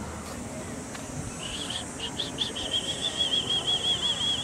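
A small bird's high trill: a quick run of identical chirping notes, about eight a second, starting about a second and a half in and lasting nearly four seconds.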